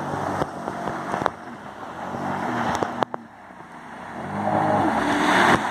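Jet ski engine running over wind and water rush, its pitch rising and falling. About three seconds in the sound drops away briefly, then grows steadily louder as a jet ski comes near.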